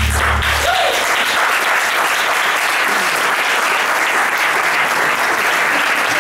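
Audience applauding, with the band's last low sustained note dying away under it in the first second.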